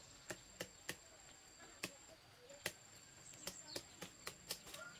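About ten sharp, faint knocks at irregular intervals: a knife chopping at a jackfruit stalk up in the tree to cut the fruit free.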